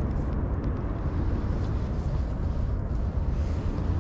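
Wind buffeting an action camera's microphone, a steady low rumble.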